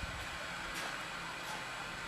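Strong gusty wind blowing over the microphone: a steady rushing hiss with low rumble.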